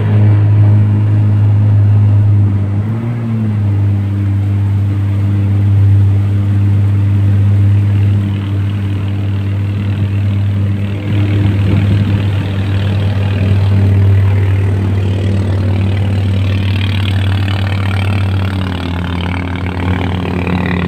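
Jet ski engine running steadily at a near-constant pitch. There is a brief wobble in pitch about three seconds in, and a rushing hiss grows stronger later on.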